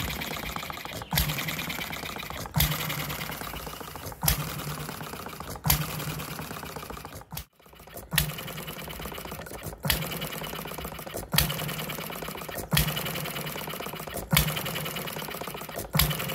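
Small Alyn Foundry RLE hit-and-miss stationary engine running, firing with a sharp bang about every second and a half and coasting on its flywheels between firings while its mechanism clatters rapidly. There is a brief gap just past halfway through.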